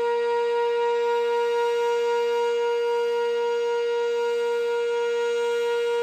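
Sentry 20V2T two-tone outdoor warning siren sounding its steady alert at full speed: one constant-pitch wail, loud and unbroken.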